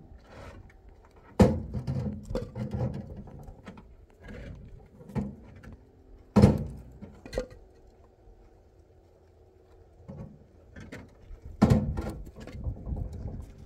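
Four sharp, heavy knocks spread out over several seconds, with scraping and handling noise between them.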